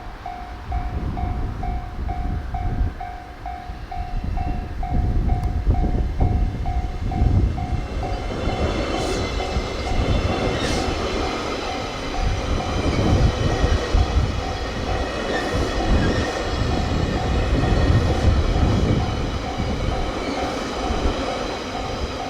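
Japanese level-crossing warning bell ringing steadily, about two and a half strokes a second. From about eight seconds in, a train passes through the crossing with a rumble and a high whine, its wheels clicking over the rail joints.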